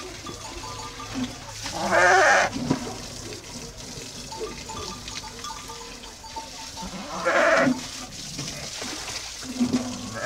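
A flock of sheep penned in a barn, with two loud bleats about half a second long, one about two seconds in and one near the end, and fainter calls between them.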